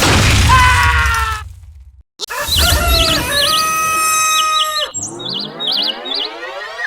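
Added sound effects: a noisy burst with a falling tone, then quick bird-like chirps over held tones, then a long rising sweep from about five seconds in.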